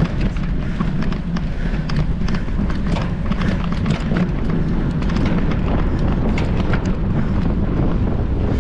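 Mountain bike ridden fast over a rough dirt trail: a steady low rumble with many sharp clicks and rattles as the bike jolts over bumps.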